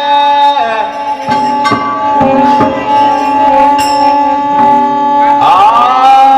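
Birha folk music: a harmonium holds steady notes while hand drums strike a few scattered strokes. A held melody note slides down about half a second in and slides back up near the end.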